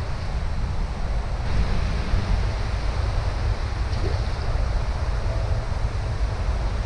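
Wind buffeting the microphone: a steady, rumbling noise with no separate events.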